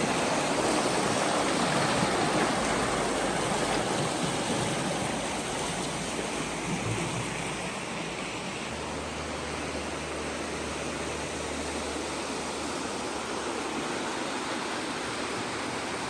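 Fast-flowing creek rushing over rocks and riffles: a steady rush of water, louder for the first half and easing a little about halfway through.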